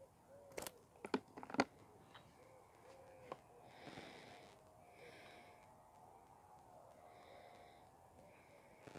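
Three sharp clicks and knocks of fishing tackle being handled, close together about a second in, then faint short hissing sounds.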